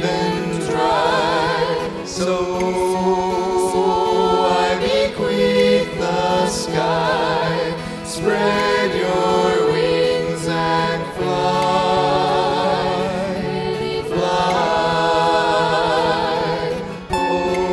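Music from a slow song's break: long held, choir-like sung notes with vibrato over a steady accompaniment, without any words.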